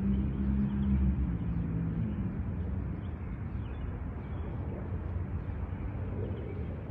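A vehicle engine's low hum fades out about two seconds in, leaving a steady low rumble of traffic or road noise.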